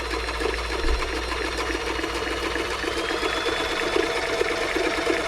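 Toyota model 2640 domestic sewing machine running steadily, stitching a zigzag test seam with a fast, even needle rhythm.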